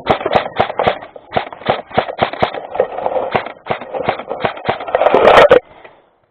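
Airsoft guns firing rapid single shots, about four or five sharp cracks a second, over rustling. The shooting stops suddenly about five and a half seconds in.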